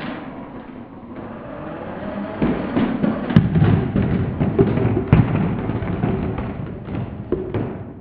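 Slowed-down sound of a remote-control car crashing into a stack of empty plastic Coca-Cola bottles. A low drone builds, then comes a long run of deep, booming thuds and clatter as the bottles are struck and tumble, fading near the end.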